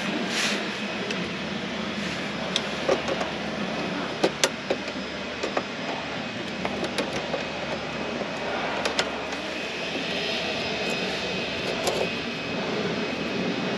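Sharp metallic clicks and taps, scattered and irregular, as pliers work a clamp on a diesel heater's small exhaust tailpipe and muffler, over a steady outdoor background rumble.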